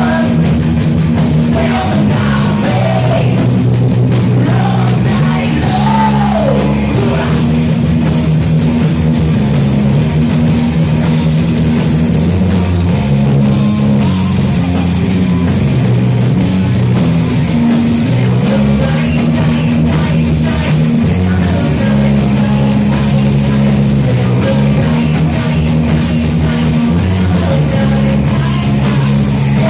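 Rock band playing live: loud, steady guitars, bass and drums, with singing.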